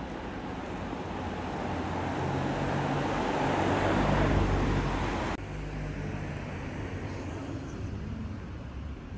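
A passing vehicle's rumble, with a low engine hum, grows louder to a peak about four seconds in and then cuts off abruptly. A quieter, steady outdoor rumble follows.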